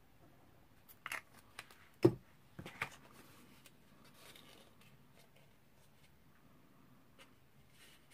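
Cardstock box base being handled and folded on a table: a few sharp clicks, a louder knock about two seconds in, then faint rustling of paper.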